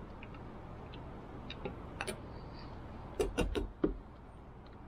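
Plastic trim cover being pressed and snapped onto a roof rail: a few light clicks, then a quick run of four louder clicks and knocks a little after three seconds in.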